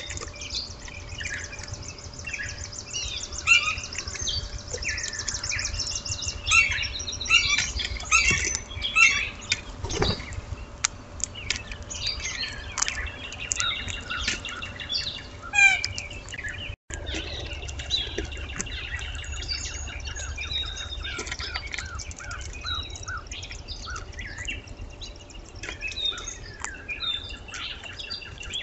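Morning birdsong: many small birds chirping and calling over one another in quick, overlapping notes. A faint steady hum runs beneath them, and the sound drops out for an instant just past halfway.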